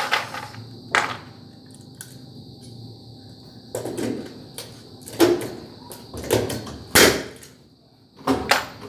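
Hammer strikes landing irregularly: a sharp knock about a second in and the loudest blows around five and seven seconds in, with duller knocks and shuffling between them.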